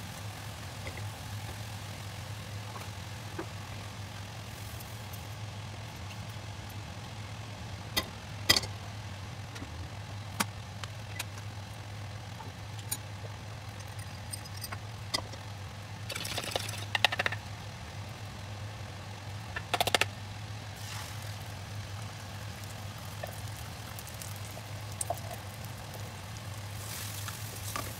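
Stovetop cooking in a non-stick wok: spatula clicks and knocks against the pan over a steady low hum, with two short scraping bursts around the middle. Near the end a hiss rises as beaten egg fries in the hot oil.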